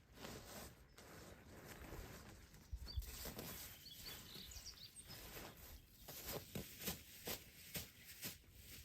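Faint outdoor background with light rustles and knocks, becoming a quicker run of sharp clicks and knocks, two to three a second, in the second half.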